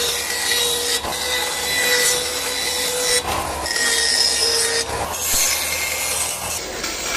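Band saw cutting a wooden board along a curved line: a steady rasping of the blade through the wood over the machine's steady running tone, broken briefly a few times.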